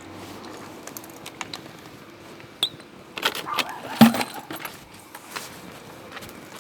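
Objects being handled: a scatter of light clinks and knocks, with a louder knock about four seconds in.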